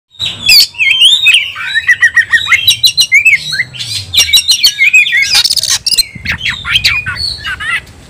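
Oriental magpie-robin singing a loud, fast fighting song: rapid, ever-changing whistles, trills and sharp chirps, with a harsh buzzy rasp a little past halfway.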